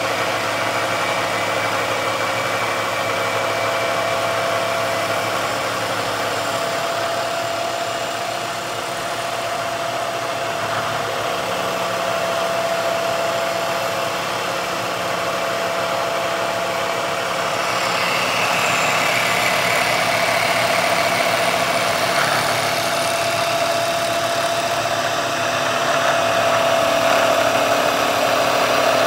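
Milling machine spindle running a milling cutter through a finishing pass in thick aluminium plate: a steady machining hum with a whine. A higher whine joins about two-thirds of the way in.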